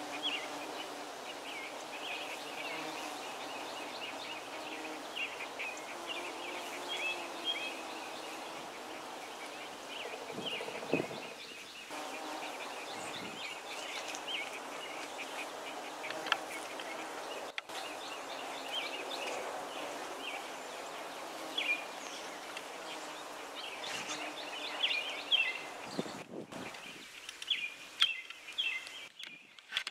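Many bees buzzing in a flowering holly tree, a steady hum, with small birds chirping again and again over it.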